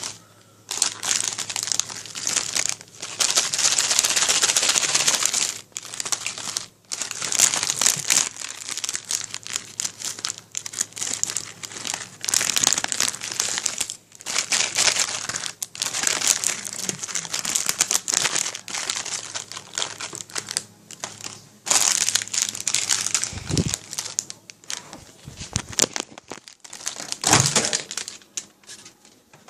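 A chip bag crinkling and crumpling as it is handled, in irregular bursts with short pauses.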